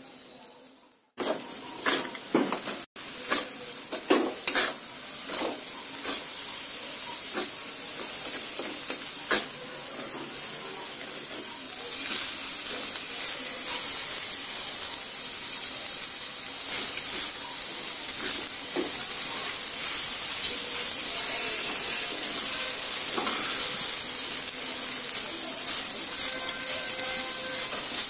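Seasoned boiled rice with peanuts sizzling in a metal kadai as a wooden spatula stirs it, with scattered clicks and knocks of the spatula against the pan in the first part. The sizzle steadies and grows a little louder from about halfway.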